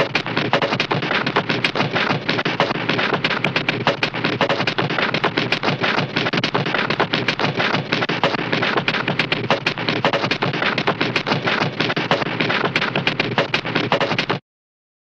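A Hanna-Barbera cartoon sound effect of dense, rapid crackling: many irregular pops and clicks packed closely together with no steady beat. It cuts off abruptly about a second before the end.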